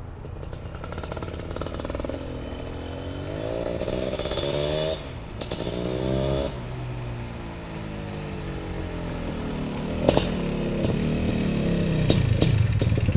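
BRC 500 kit engine in a Husqvarna TE 250 motorcycle being revved: the pitch climbs twice, each time dropping off suddenly, then sinks back slowly before building louder again near the end. A single sharp click about ten seconds in.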